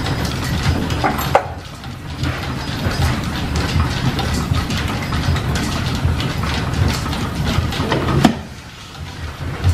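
Line-shaft-driven machine tools running under steam power: a steady mechanical clatter full of small rapid clicks. It drops away briefly twice, for about a second each time.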